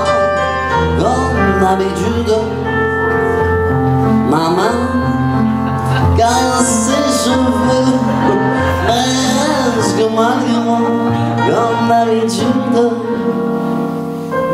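Live music: a male vocalist singing into a microphone over sustained keyboard chords.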